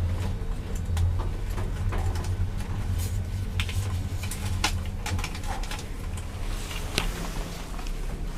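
Passenger lift running with a steady low hum, with scattered light clicks and knocks.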